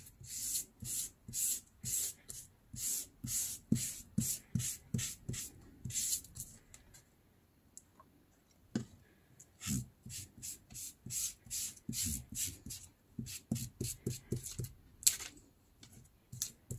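Felt-pad alcohol ink applicator rubbed back and forth over strips of medical tape on slick backing paper, a run of short scrubbing strokes about two a second. It stops for about two seconds midway while the pad is re-inked, then the strokes start again.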